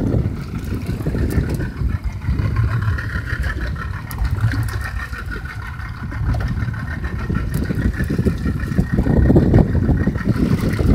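Boat's outboard motor running at low speed, a steady rumble with a faint whine, mixed with wind and water noise and growing louder near the end.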